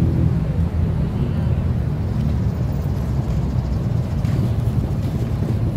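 Street ambience dominated by a steady low rumble of city traffic.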